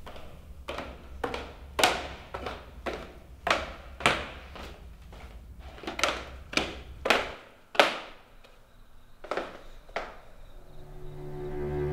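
Footsteps on wooden stairs, an even step about every half second, a dozen or so, then two slower ones. A low music drone with held tones swells in near the end.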